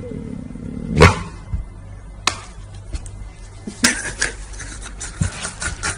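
A series of sharp knocks and clatters, the loudest about a second in.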